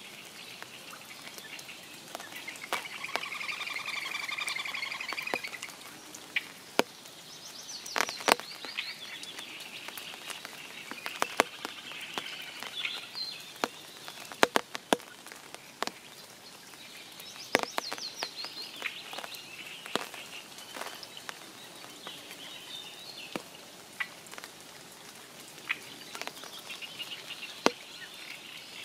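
Spring rain falling on a forest pond: scattered heavy drops tap sharply and irregularly over a soft steady patter. Birds sing throughout, with a loud pulsed trill about three to five seconds in.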